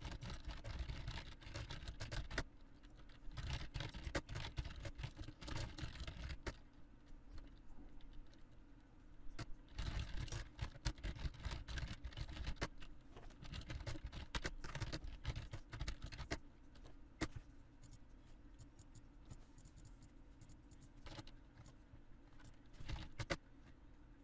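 Typing on a computer keyboard: bursts of quick key clicks with short pauses between them, over a faint steady hum.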